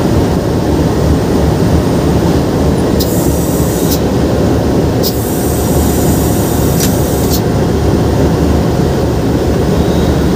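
Steady low rumble of a running locomotive heard inside the cab, with two stretches of high hiss: one about three seconds in lasting a second, and a longer one from about five to seven seconds.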